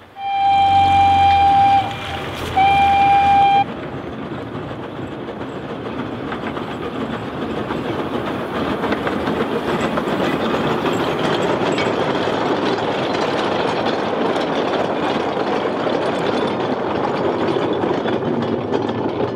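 Steam whistle of an 1898 Hunslet quarry-class narrow-gauge steam locomotive sounding two blasts, the second shorter, then the locomotive and its train of wagons running past, a steady rattling noise that builds over several seconds and stays loud.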